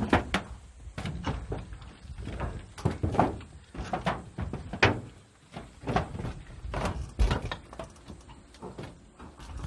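Irregular footsteps and knocks on a corrugated tin roof, sheet metal thudding and ringing briefly under a person's weight.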